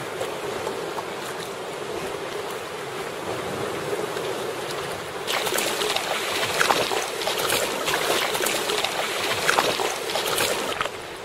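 Sea water sloshing and splashing around a sea kayak. About five seconds in it becomes louder and splashier, with irregular slaps of choppy water against the hull.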